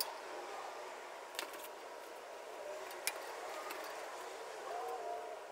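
A few faint clicks of metal parts being handled while the upper blade guide of a 14-inch bandsaw is adjusted by hand, over a steady low hiss.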